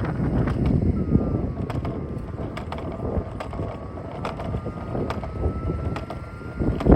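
Robot vacuum running on a dock: a faint thin whine that drifts slightly in pitch, with irregular clicks and knocks over a low rumble. There is a louder knock near the end.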